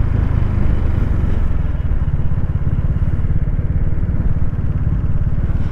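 Motorcycle engine running steadily as the bike cruises along the road, a low, even drone.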